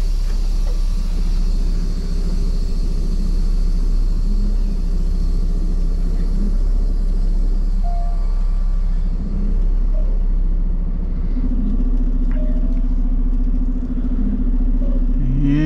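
Semi truck's diesel engine running at low speed, heard from inside the cab while the rig is eased into a loading dock. A steady low rumble, with a higher, steady hum joining about eleven seconds in.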